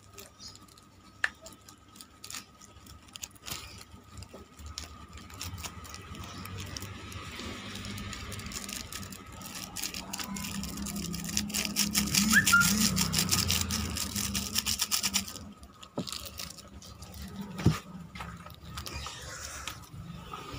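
Plastic seasoning sachets crinkling and being shaken and squeezed as the powder is emptied into a ceramic bowl, with small clicks and taps. The crackling rustle builds through the middle and cuts off suddenly about fifteen seconds in, followed by a few single knocks.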